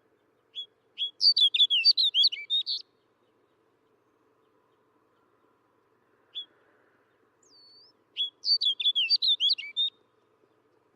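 Snow bunting singing: two short, quick warbling phrases of rapidly rising and falling notes, each about two seconds long and several seconds apart. A single short note comes before the second phrase, and a faint slurred whistle comes just before it.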